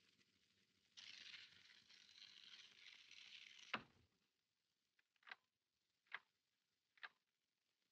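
Faint steady hiss that cuts off with a sharp click about four seconds in, then near silence broken by three faint ticks.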